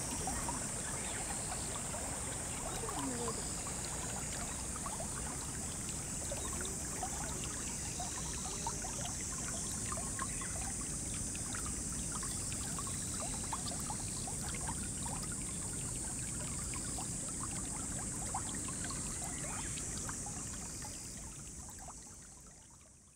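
Shallow river flowing and rippling, a steady rush full of small splashes and trickles, with a steady high-pitched insect hiss above it. Both fade out near the end.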